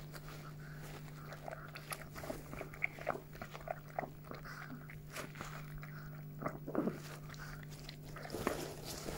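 Mother chihuahua licking and chewing at her newborn puppy, wet smacking and nibbling sounds mixed with the rustle of gloved hands rubbing the pup. A steady low hum sits underneath.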